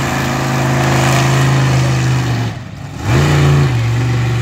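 Monster truck engine revving hard and held at high revs. About two and a half seconds in it briefly backs off the throttle, then quickly revs back up.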